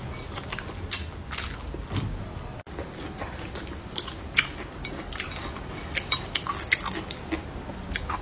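Close-miked chewing and mouth sounds of a person eating a bowl of saucy noodles and rice, with irregular sharp clicks and smacks.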